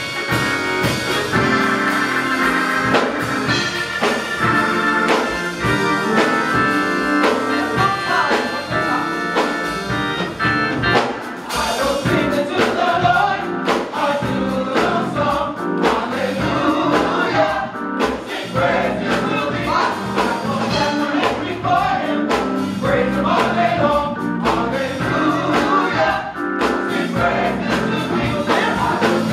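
Gospel choir singing a praise song with band accompaniment and a steady beat.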